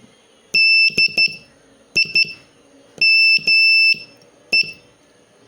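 Morse code practice tone, a steady high-pitched beep, sending the word DIME: dah-dit-dit, dit-dit, dah-dah, dit, with the letters spaced about a second apart.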